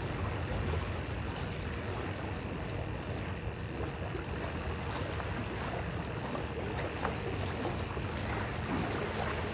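Small sea waves washing over a shallow shore, a steady wash with wind rumbling on the microphone.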